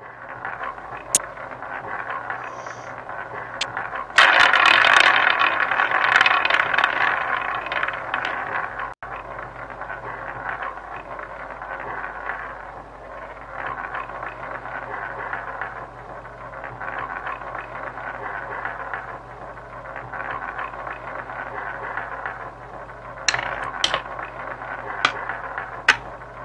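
Online roulette game's sound effect of the ball rolling around the spinning wheel: a continuous rattling whir, loudest from about four to eight seconds in. A few sharp clicks come near the end.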